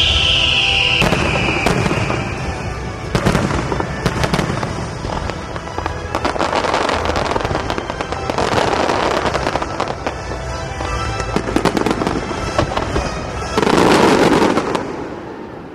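Fireworks going off: a run of sharp bangs and crackles with music playing underneath, a high falling whistle fading out in the first two seconds, and a louder burst near the end.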